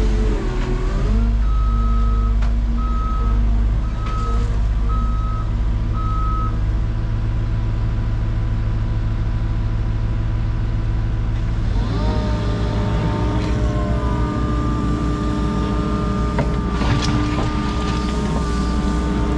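Diesel engine of a compact construction machine running steadily, with a backup alarm beeping about five times in the first few seconds. About twelve seconds in, the engine speeds up and holds at a higher speed, with a few knocks near the end.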